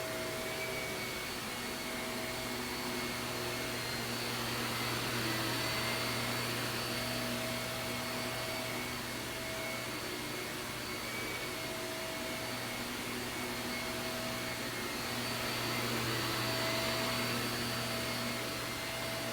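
Shark vacuum cleaner running steadily, a motor whine over a rush of airflow, swelling slightly in loudness twice.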